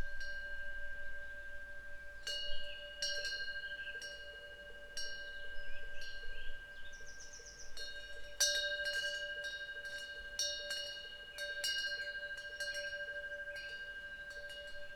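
A Korean temple wind bell (pungyeong) struck irregularly by its swinging clapper, each strike adding bright ringing to steady bell tones that hang on between strikes. A small bird gives a quick trilled chirp about halfway through.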